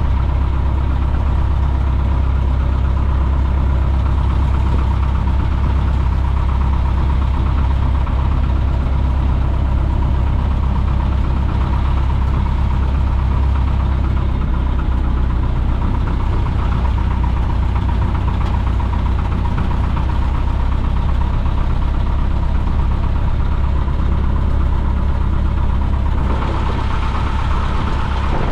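Piper J-3 Cub's engine and propeller running steadily, heard from inside the cockpit as a loud, even drone with a deep rumble. The sound shifts slightly and gets a little quieter near the end.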